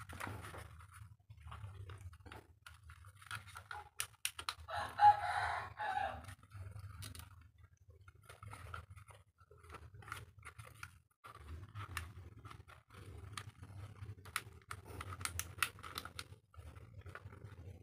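Scattered clicks and creaks of the plastic clamshell housing of a Black & Decker mouse sander being pried apart by hand, the halves stiff to separate. A rooster crows once about five seconds in, the loudest sound, over a faint low hum.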